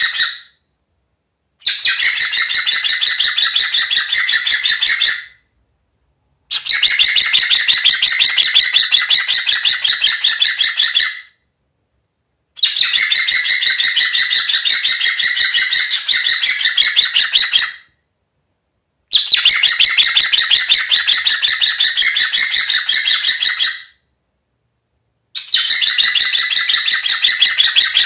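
Cockatiel mimicking an electronic alarm: a high, rapidly pulsing call in bursts of four to five seconds, each followed by a pause of about a second, repeated over and over.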